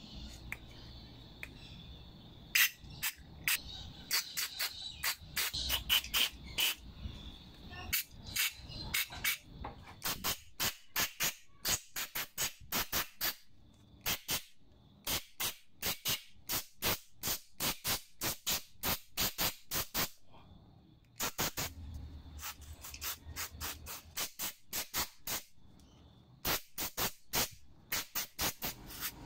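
Aerosol carb cleaner sprayed through a straw nozzle in many short hissing bursts, about two or three a second in runs with brief pauses. It is flushing the small air and pilot-jet passages of a plastic carburetor.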